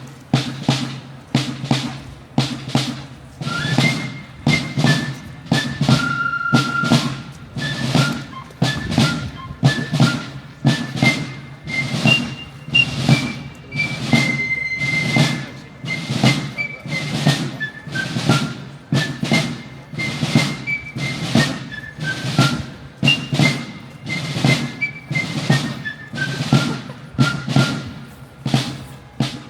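Military drums and fifes playing a march: the drums beat a steady marching rhythm of about two strokes a second under a thin, high fife melody.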